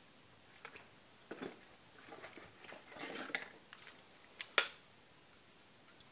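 A cardboard parts box and the plastic bag inside it being handled as a new chainsaw cylinder kit is unpacked: scattered rustles and light taps, busier around the middle. About four and a half seconds in there is one sharp click, the loudest sound.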